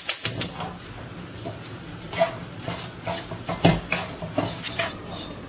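A spoon scraping through dry, coarse rice flour against the bottom of a metal kadai while the flour is dry-roasted: a handful of irregular stirring strokes with short pauses between them.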